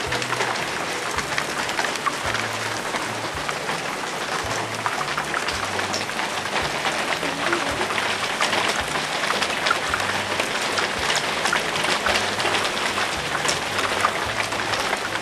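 Small hailstones hitting a carport roof and the ground outside: a dense, steady hiss made of countless small sharp ticks.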